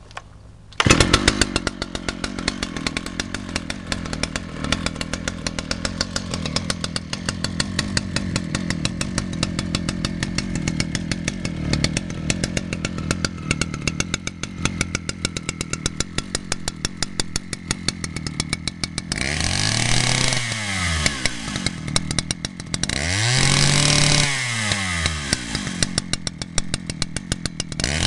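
Vintage Husqvarna 285 CD two-stroke chainsaw starting about a second in, then idling with a fast, even firing beat. Near the end it is revved up and let back down twice, and a third rev begins at the very end.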